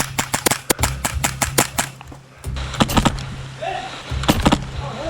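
Airsoft guns firing: a quick string of shots at about eight a second for roughly two seconds, then two short bursts about three seconds and four and a half seconds in.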